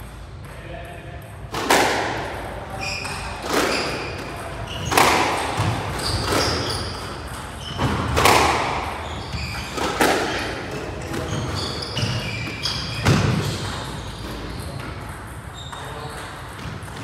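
Squash rally: the ball cracking off rackets and the court walls about every one and a half to two seconds, each hit echoing in the court, with short shoe squeaks on the wooden floor between hits. The hits stop about thirteen seconds in.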